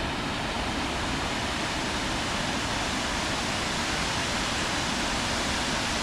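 Steady rushing of Millstream Falls, a waterfall pouring over a basalt rock wall into a pool.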